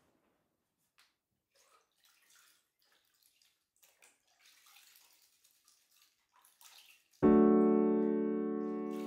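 Faint splashing and dripping of water as a cleaning cloth is dunked and wrung out in a metal bucket. About seven seconds in, a loud piano chord strikes and rings down slowly.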